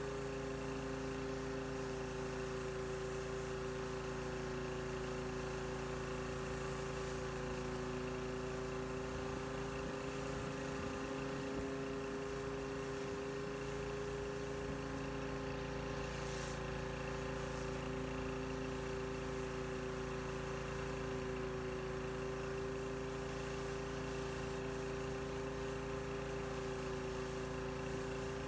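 Pressure washer running steadily: a constant pitched hum that holds the same pitch throughout.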